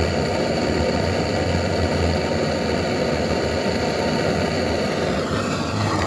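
Butane blowtorch burning steadily with a loud rushing hiss as it heats an aluminium tube, the sound shifting slightly about five seconds in.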